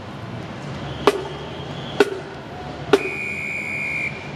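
Marching drum line of a drum and bugle corps striking single unison drum hits about once a second, a marching tempo. Near the end a high, steady whistle-like tone sounds for about a second.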